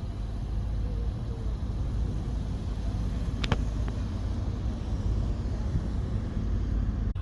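An engine running steadily with a low rumble, with one sharp knock about three and a half seconds in.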